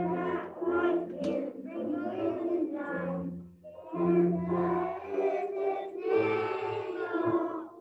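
A group of preschool children singing a Christmas song together, phrase after phrase, with the singing stopping abruptly at the very end.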